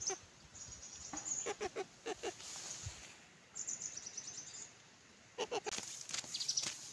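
A domestic hen clucking in quick rhythmic runs, twice, with faint high chirps of small birds between them.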